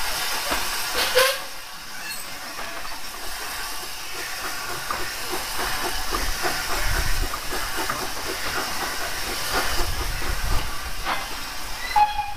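GWR 4200-class 2-8-0 tank engine No. 4247 hissing steam as it draws near, a steady hiss with a faint regular beat and low rumble in the middle. A sharp clank about a second in and a short, higher-pitched sound near the end stand out above it.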